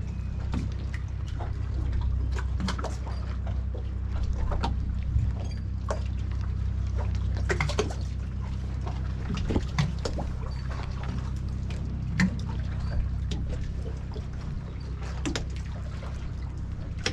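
Harbour water lapping and trickling against the hull of a small moored fishing boat, with many scattered small splashes and clicks over a steady low rumble.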